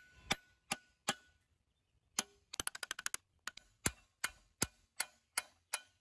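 Hammer striking the end of a rebar rod used as a drift, knocking debris out of a rusty shovel's handle socket on an anvil: sharp metal-on-metal blows, some with a short ring. Three blows, a pause, a quick flurry of light taps, then a steady run of blows a little under three a second.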